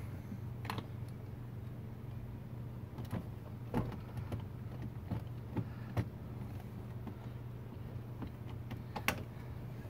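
Scattered small clicks and taps of a hand screwdriver and screws against plastic trim as the screws are driven back into a car's center console, with a sharper click near the end, over a steady low hum.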